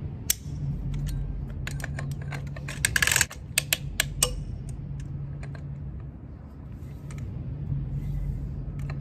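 Ratcheting torque wrench tightening a Stemco Zip Torque spindle nut on a trailer axle hub: a run of sharp metallic clicks, with a louder rattling cluster about three seconds in. A steady low hum runs underneath.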